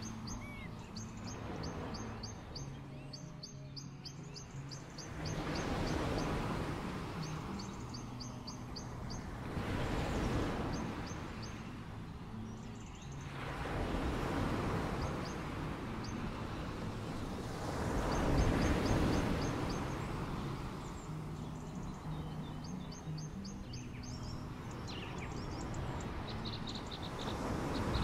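Small waves washing onto the beach, swelling and easing every few seconds, with birds calling in quick runs of high chirps.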